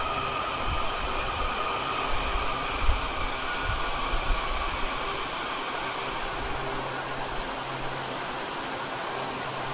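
WMATA 7000-series Metro train slowing to a stop at an underground platform: a faint falling whine from its drive fades out in the first few seconds over a rushing hiss, with a few low thumps, then a steady low hum as it comes to a stand.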